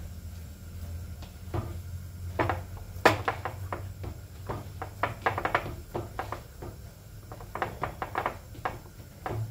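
A hand mixing a crumbly semolina mixture in a bowl: irregular small clicks and scrapes of fingers against the bowl, with one sharper knock about three seconds in, over a low steady hum.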